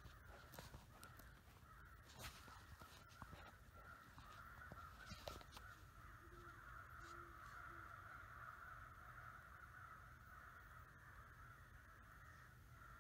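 Faint field ambience with distant crows cawing: three short caws about six to eight seconds in, over a steady high hiss, with a few faint clicks in the first half.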